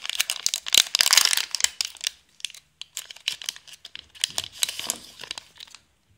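Foil booster pack crinkling and tearing as it is opened by hand, with a dense burst of crackling in the first two seconds, then scattered crinkles.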